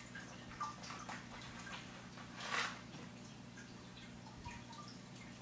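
Faint rustling and small clicks of a toy fake mustache and its wrapping being handled by hand, with one short, louder crinkle about two and a half seconds in. A low steady hum runs underneath.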